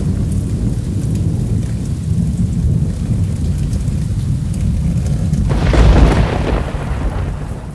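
Thunderstorm sound effect: a low rolling rumble of thunder over rain hiss, then a loud thunder crash after about five and a half seconds that dies away.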